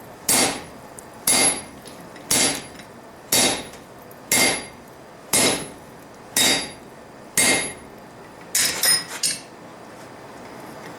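Four-pound hand hammer striking a hot steel spring swage on the anvil. There are eight ringing blows at about one per second, then a quick flurry of lighter hits, as the swage halves are driven together over a round-bar template to form the rounding groove.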